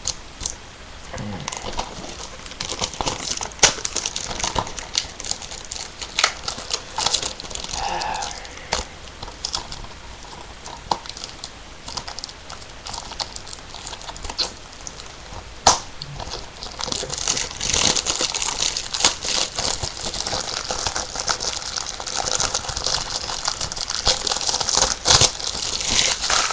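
Crinkling plastic wrapping and many sharp clicks and taps from hands working open a DVD case, getting busier after about 16 seconds.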